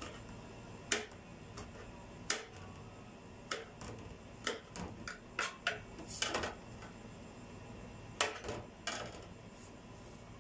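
Kitchen knife slicing garlic cloves on a cutting board: irregular sharp taps of the blade striking the board, bunched in quick runs with short pauses between.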